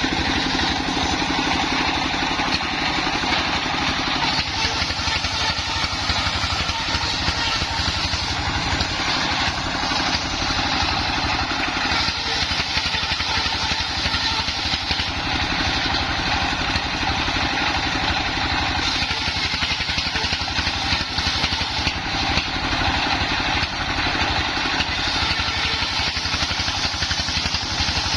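Engine-driven mobile circular sawmill running steadily, a constant engine drone with a fast low pulse and no break or change.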